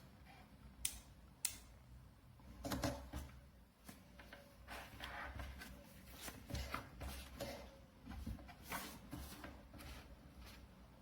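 Faint handling noises: two sharp clicks early, then a string of irregular clicks and short rustles as small objects are moved about.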